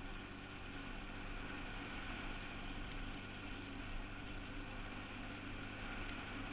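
Suzuki Quad Runner 160 ATV's single-cylinder four-stroke engine running steadily, under an even hiss.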